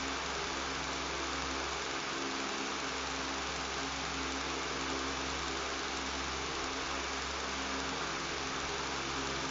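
Electric fan running steadily: an even rush of air with a constant low motor hum and buzz, unchanging throughout.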